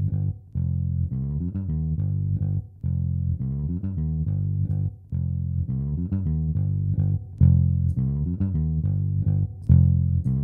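Recorded electric bass guitar line playing back, a continuous run of plucked notes broken by short gaps, heard unprocessed with no compression or expansion. A few notes in the last three seconds hit noticeably louder.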